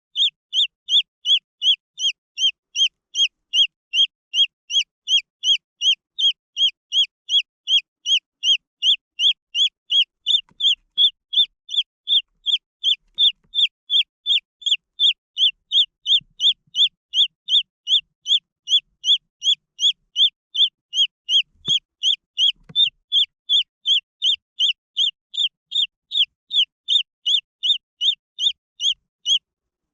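Green junglefowl chick peeping: a steady, evenly spaced run of short high-pitched peeps, about two and a half a second, without a break.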